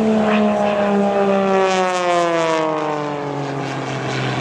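Single-engine aerobatic propeller plane's engine and propeller droning, the pitch sliding steadily lower over a few seconds.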